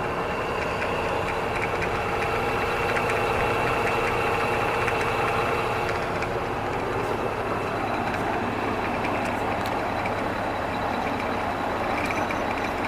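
Enco ZJ4116 16-speed drill press running steadily, its motor and belt drive giving an even hum, running smoothly. A high whine in the sound drops away about halfway through.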